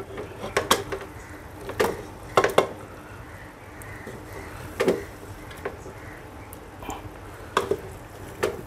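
Wooden spoon scooping curry out of an aluminium pressure cooker onto a plate: scattered knocks and scrapes of the spoon against the pot and the plate, about nine in all.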